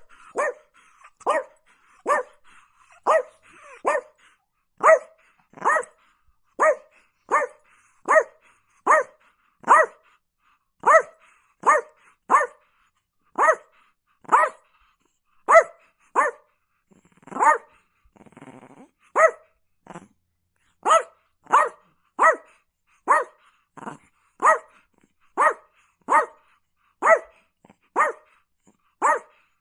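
A dog barking over and over at a steady pace, about three barks every two seconds, each bark short and sharp. About halfway through, the barking pauses for a brief low, rough sound like a growl.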